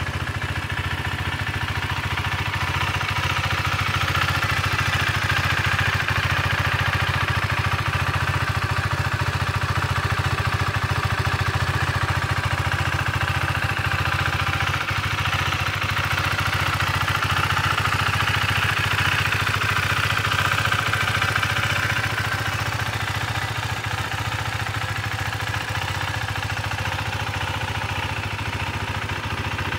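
KTM 390 Duke's single-cylinder engine idling steadily, a little louder through the middle stretch.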